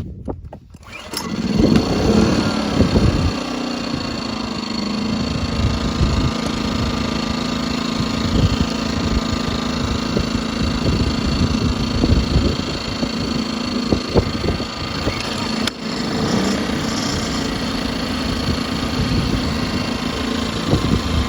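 Harbor Freight Predator 2000 inverter generator's small single-cylinder four-stroke engine starting about a second in, revving up and then settling into steady running, with its carbon monoxide shutdown sensor jumpered out. A sharp click comes near the end, with a brief dip in the engine sound.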